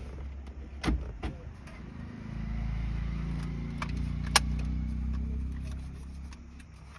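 Plastic and metal clicks and knocks of a car stereo head unit being pushed into its dashboard slot, the sharpest click a little past the middle. A vehicle engine runs with a low rumble from about two seconds in and fades near the end.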